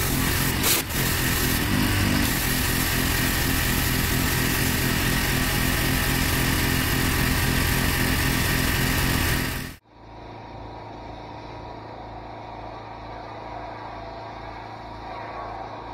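Pressure washer engine running steadily under the hiss of water spraying from the lance onto block paving. It cuts off suddenly about ten seconds in, leaving a quieter steady hum.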